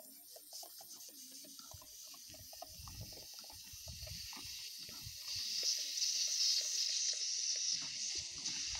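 Steam hissing and sputtering through a small 3D-printed steam engine as the steam valve is opened and the flywheel is turned over by hand, with irregular low chuffs. The hiss grows much louder about five seconds in.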